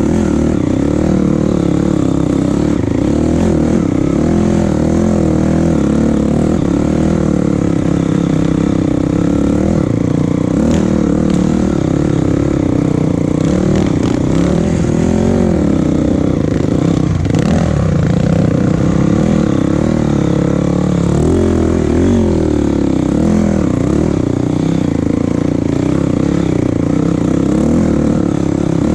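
A vehicle engine running continuously, its pitch rising and falling every few seconds as the revs change.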